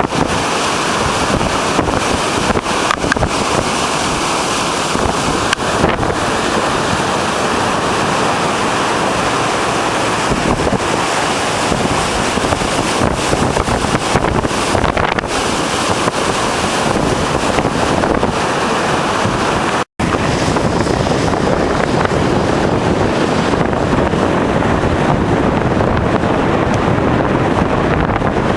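Large typhoon-driven waves breaking in a steady, heavy rush, with strong wind buffeting the microphone. The sound cuts out for an instant about twenty seconds in.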